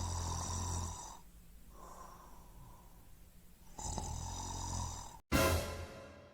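Snoring sound effect: two long, loud snores about four seconds apart with a quieter breath between them. About five seconds in, a different sound effect cuts in suddenly, louder, falling in pitch and fading.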